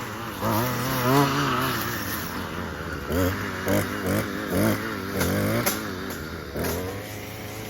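Small petrol engine revving up and down over and over, its pitch rising and falling with each short burst of throttle.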